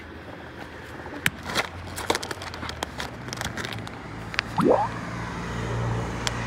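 Crackling and clicking of a foil treat bag of cheese cubes being handled and opened. A short rising squeak comes a little past the middle, and a low steady hum begins around halfway through.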